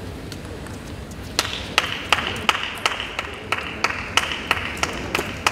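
Rhythmic clapping in the arena, sharp even claps at about three a second, starting about a second and a half in.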